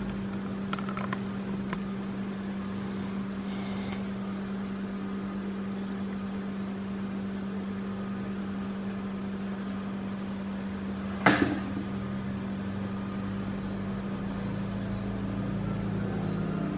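A steady low hum with a few faint clicks near the start and one sharp click about eleven seconds in.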